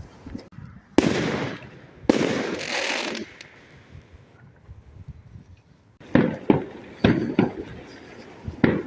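Fireworks going off. Two sharp bangs about a second apart, each trailing a second or so of crackling hiss, then a rapid string of sharp cracks from about six seconds in.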